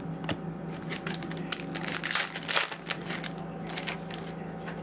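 Foil trading-card pack wrapper being crumpled in the hands: a run of irregular crackles, loudest about halfway through.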